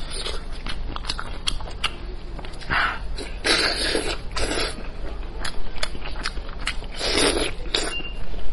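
Close-miked eating sounds: a person chewing and sucking meat off a cooked sheep's-head jawbone, with many small clicks and smacks and a few longer slurping sucks.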